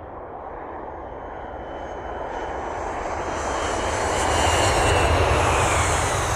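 Jet airplane passing by: a broad engine rush that swells to its loudest about five seconds in and then begins to fade. A high whine slides down in pitch as it passes.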